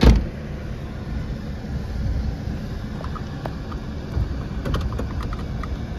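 A car door thuds shut, then a steady low rumble of the car heard inside the cabin, with a few light clicks from about three seconds in.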